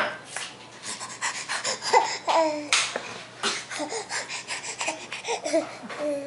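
Baby drinking from a plastic cup held to his mouth, breathing noisily and making short squeaky vocal sounds into it, with many short clicks and taps throughout.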